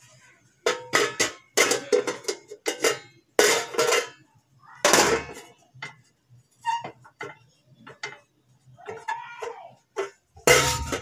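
Pots and utensils clattering and clinking as they are handled: an irregular string of knocks, some with a short ringing tone.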